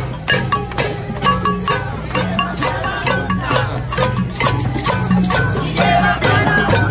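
Protest crowd beating pots and pans in a quick, even rhythm, a cacerolazo, the metal clanging and ringing on each strike, with panderos (plena frame drums) beating underneath. Voices shout over the beat near the end.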